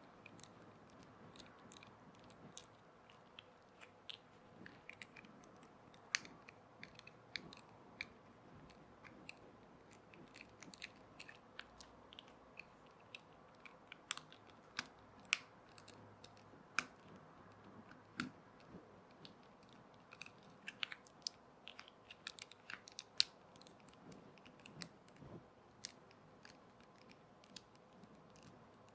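Irregular small clicks and ticks of hands handling and working on a plastic RC toy motorbike, over a faint steady room background.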